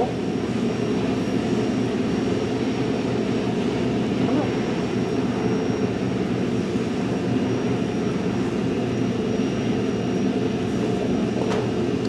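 Steady room drone from air conditioning or ventilation: an even hiss with a constant low hum and a faint high whine.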